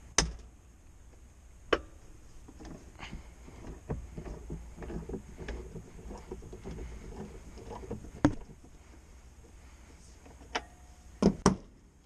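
Metal tools being handled: a run of irregular rattling and shuffling, broken by half a dozen sharp clanks, two of them in quick succession near the end.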